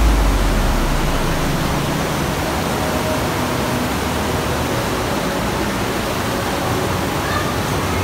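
Underground waterfall in a cave stream rushing steadily: an even, unbroken noise of falling water.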